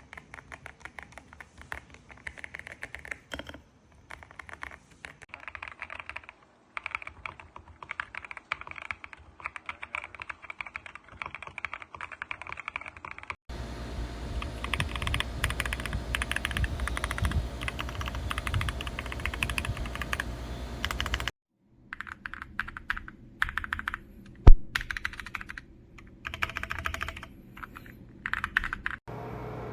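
Mechanical keyboard with LongWind WS (Wuque) switches being typed on in quick runs of key clicks, in several cut-together takes. In the middle stretch the typing sits over a low rumble, and one sharp loud knock stands out in the last third.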